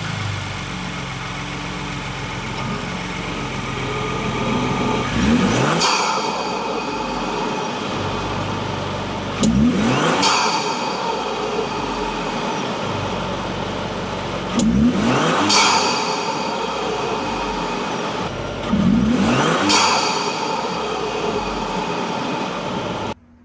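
6th-gen Ford Bronco's turbocharged EcoBoost engine, breathing through a Burger Motorsports aftermarket intake filter and cover, idling and then revved four times. Each rev climbs and falls back to idle. The sound cuts off suddenly near the end.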